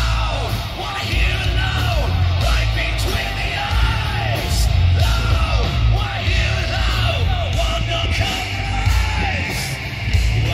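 Live rock band playing loud, with a singer's yelled vocals over heavy bass and drums.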